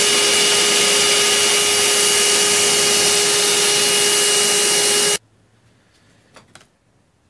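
Shop vacuum running steadily with a constant whine, clearing metal chips from a freshly cut hole in a fuel tank. It cuts off abruptly a little over five seconds in, leaving only a few faint clicks.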